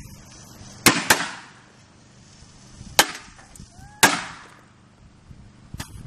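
Firecrackers going off inside a toaster oven as it heats them: sharp bangs with short ringing tails. Two come close together about a second in, another around three seconds, a loud one at four seconds, and a smaller pop near the end.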